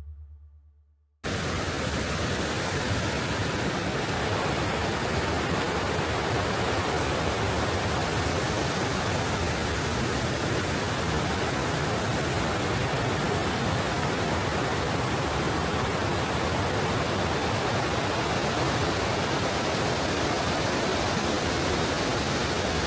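Steady rushing of falling water, an even hiss that cuts in suddenly about a second in.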